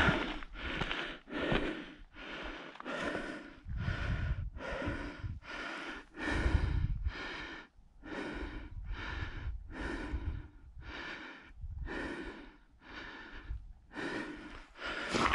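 A hiker breathing hard and rhythmically close to the microphone, each breath a rush of air, about one and a half breaths a second. Dull low thumps sound now and then.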